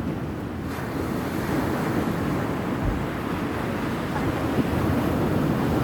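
Steady rushing of wind and surf at the shore, with wind buffeting the microphone in low gusts.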